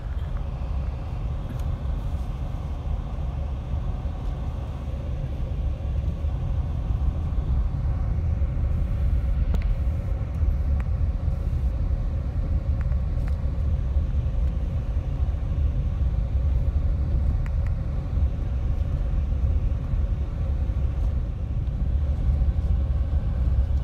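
Steady low rumble of a car driving on a gravel road, heard from inside the cabin: the engine and the tyres on the gravel, with a few faint ticks.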